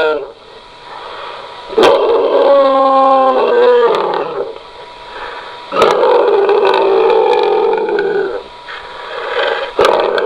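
A person's voice imitating animal growls and roars, in three separate stretches that each start abruptly and last one to three seconds.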